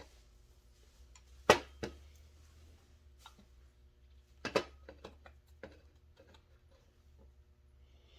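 Sharp metal knocks and light clicks of a chainsaw engine side cover being worked onto the crankcase over the crankshaft and its seal. The loudest knock comes about a second and a half in, followed by another just after it and a cluster of knocks around four and a half seconds, all over a low steady hum.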